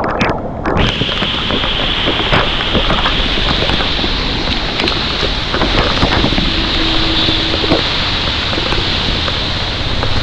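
Loud wind rushing over the microphone of a motorcycle rider's camera, a steady noise with the bike's running and road noise beneath it.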